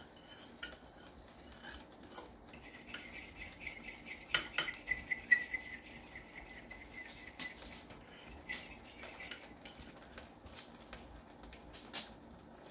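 A metal cooking utensil clinking and knocking against a pot or wok while stirring, with a cluster of sharper knocks a little before the middle. A faint steady high tone runs under the middle of it.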